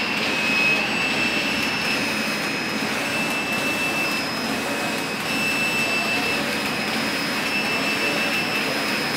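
Computerized flat knitting machine running: a steady mechanical whir with a high whine that shifts slightly in pitch every second or so.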